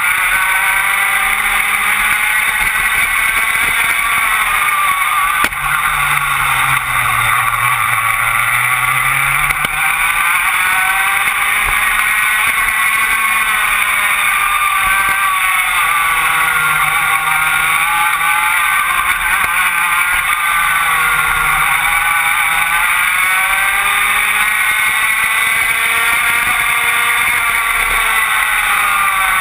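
Rotax Max 125cc two-stroke kart engine at racing speed, heard from on board the kart, its pitch falling and rising again over and over as it slows for corners and pulls out of them.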